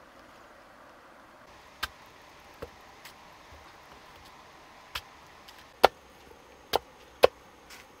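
A knife chopping a peeled white root on a wooden stump block: about seven sharp chops at uneven intervals, beginning about two seconds in, the loudest ones near the end.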